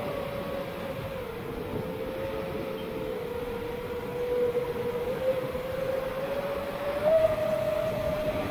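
Steady motor and propeller whine from a 7-inch FPV quadcopter on 2806.5 1300 kV brushless motors, with a rushing noise underneath. The pitch dips a little about a second in and rises again near the end as the throttle changes.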